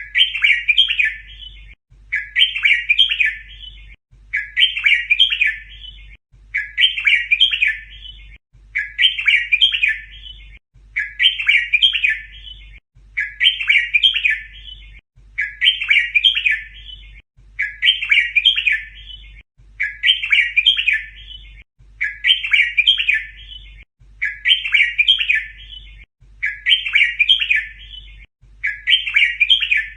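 Red-whiskered bulbul song: the same short, bright phrase repeated about every two seconds, like a looped recording. It is the repeated 'double' song style played to teach young caged bulbuls.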